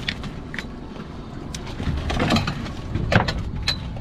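Scattered clicks, knocks and scrapes of a crab pot being handled and emptied of spider crabs, over a steady low rumble, with a louder clatter about two seconds in and a sharp knock near the end.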